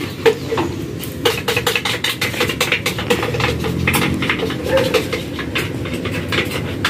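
Dishes and utensils clattering, with many irregular clinks and knocks over a steady low rumble.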